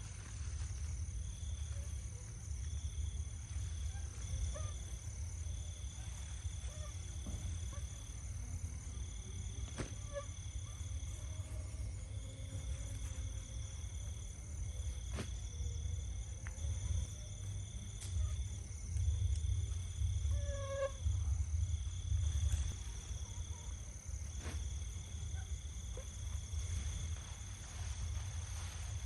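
Wind buffeting the microphone as a fluctuating low rumble, with insects chirping: a steady high-pitched trill and a repeated chirp in short runs.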